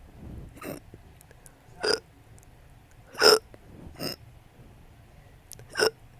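A person's hiccup burps: short, abrupt hiccups that each come out as a small burp, five in all at uneven intervals, the loudest about halfway through.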